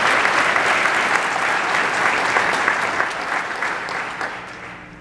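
Audience applauding, a dense clatter of many hands clapping that fades away toward the end.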